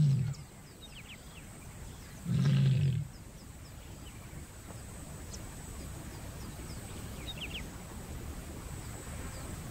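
Lioness in heat calling to attract males: a short low call right at the start and another, slightly longer, about two and a half seconds in.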